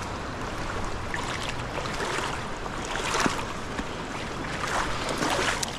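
Rushing water of a high-running trout stream, a steady rushing hiss.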